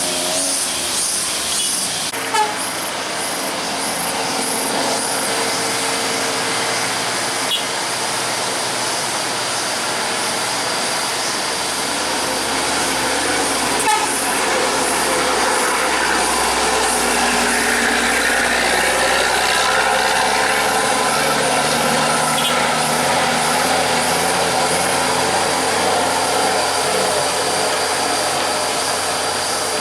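Large intercity bus running, with a continuous engine and road noise that grows heavier around the middle. There are a few faint steady horn-like tones in the first several seconds.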